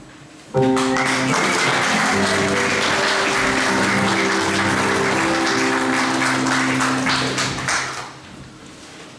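An audience applauding over music with held, changing chords. Both start suddenly about half a second in and fade out near the end.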